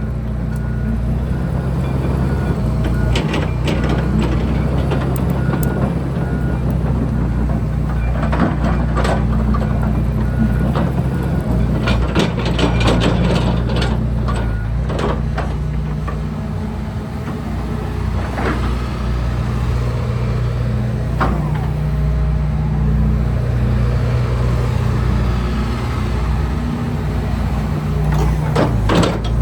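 2015 John Deere 245G LC excavator's diesel engine running under load as the machine works, its pitch and level rising and falling, with scattered sharp metallic knocks and clanks throughout.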